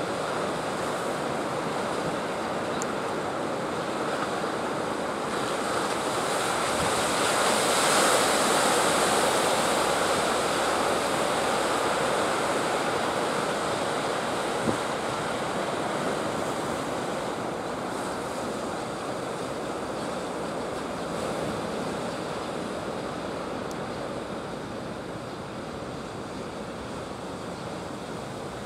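Ocean surf breaking and rushing at a river mouth, a steady wash that swells about a quarter of the way in and slowly eases off toward the end. A single sharp click about halfway through.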